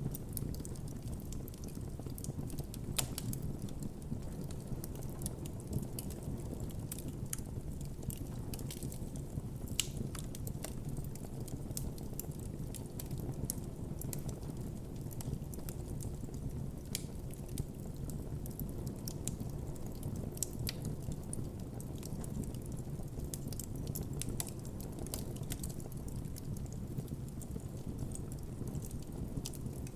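Campfire crackling and popping: irregular sharp snaps scattered over a steady low rumble of the flames.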